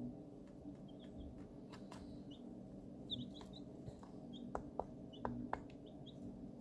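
Young chicks peeping faintly: short, high cheeps scattered throughout, with a few light clicks and a steady low hum underneath.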